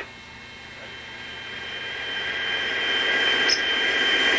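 AH-64 Apache cockpit noise: a steady high-pitched whine of the helicopter's turbines and drivetrain over a hiss, growing steadily louder.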